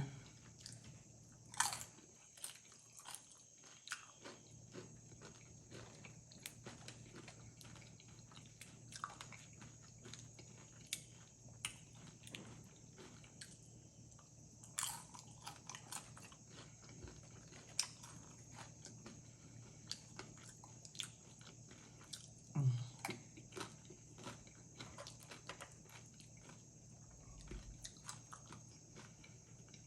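Close-up eating sounds of loaded beef nachos: chewing with scattered sharp crunches of tortilla chips and wet mouth clicks, one every second or so.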